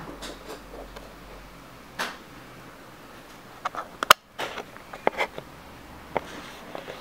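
Scattered soft rustles and clicks of handling noise over a quiet room background, with a sharp click about four seconds in and a brief moment of silence right after it.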